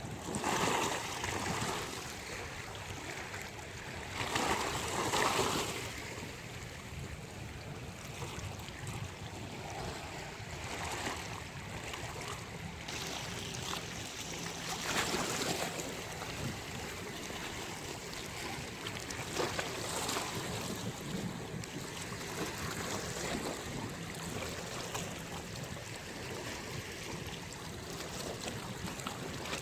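Sea waves washing onto a beach as a steady rushing noise, with louder surges breaking about a second in, around five seconds, and again around fifteen and twenty seconds. Wind runs through it.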